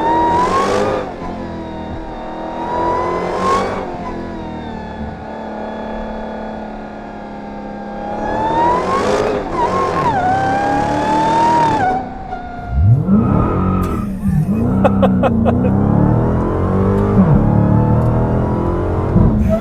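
High-performance car engines revving through loud exhausts, the pitch climbing and dropping with each blip of the throttle, across several short clips. Around two-thirds of the way through, a quick run of sharp pops comes from the exhaust as a new engine note rises from low.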